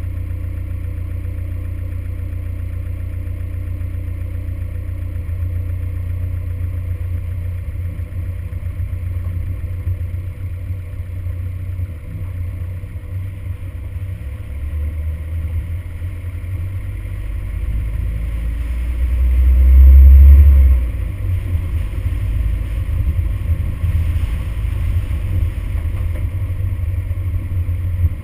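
Toyota Hilux pickup driving along a rough gravel track: a steady low rumble of engine and tyres that swells to its loudest about two-thirds of the way through.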